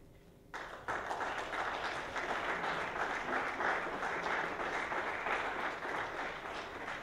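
Audience applauding. It breaks out suddenly about half a second in and carries on steadily.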